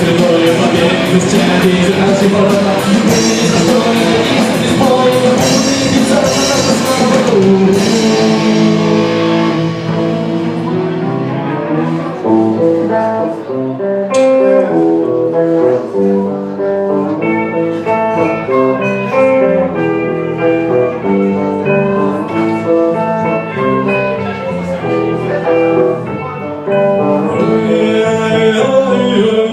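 Rock band playing live, an instrumental break with no vocals. The full band with crashing cymbals plays for the first several seconds, then the drums drop away and a melodic electric guitar line carries on over the rest, with the cymbals coming back in near the end.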